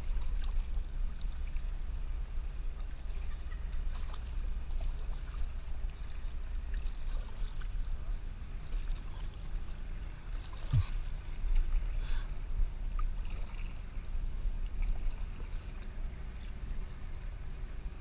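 Kayak paddling: paddle blades dipping and water splashing and lapping against the hull, over a steady low rumble of wind on the microphone. A single short knock comes about eleven seconds in.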